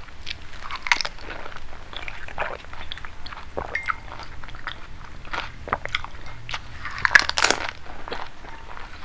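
Close-up crunching and chewing of panipuri: crisp fried puri shells crack between the teeth in quick, irregular succession. The loudest crunch comes about seven seconds in.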